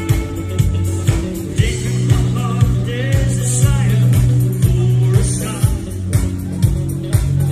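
Live band playing amplified pop-rock through a stage PA: a steady drum beat about two strokes a second over a bass line and electric guitar, with a singer's voice coming in at times.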